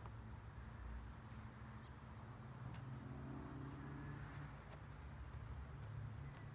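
Quiet outdoor background: a low, steady rumble of distant traffic, with a faint high chirp repeating about three to four times a second.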